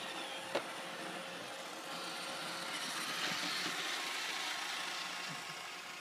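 Robot vacuum cleaner running, a steady whir of its suction motor and brushes, growing a little louder in the middle, with one sharp knock about half a second in.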